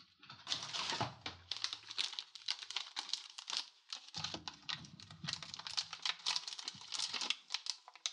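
Plastic candy wrapper crinkling and crackling in rapid, irregular bursts as a gummy sticker packet is picked up and handled.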